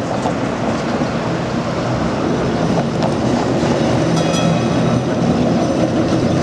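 Green New Orleans Perley Thomas streetcar rolling past on its rails, a steady rumble of wheels and running gear, with a brief higher-pitched squeal or ring about four seconds in.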